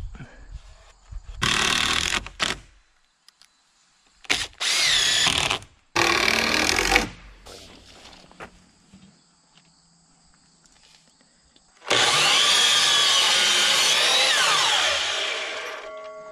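Power drill running in three short bursts, fastening a trim board to a wooden frame; about twelve seconds in, a miter saw runs for some three seconds and winds down with a falling whine.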